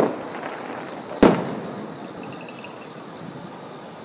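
Aerial fireworks shells bursting with sharp booms. One goes off right at the start and a louder one about a second in, each trailing off in a rolling echo.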